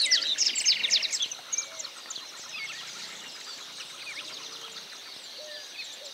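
Birds chirping: a dense run of quick, high, sharply sloping call notes in the first second and a half, then sparser, quieter chirps.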